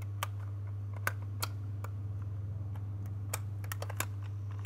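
Irregular sharp clicks and clacks of a WE Desert Eagle gas blowback airsoft pistol being handled as its metal slide is worked off the frame, over a steady low hum.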